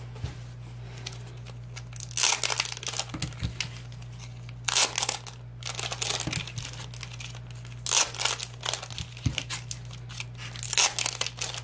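Photocard pack wrappers being handled and torn open by hand: crinkling and tearing in about five short bursts, a second or two apart.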